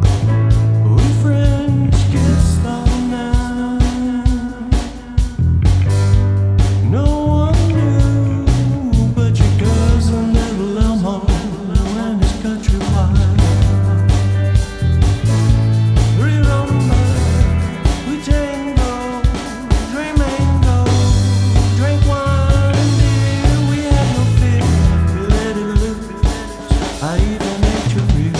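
Rock music with electric guitar, bass and a steady drum beat, with a melodic line that may be singing or a lead instrument.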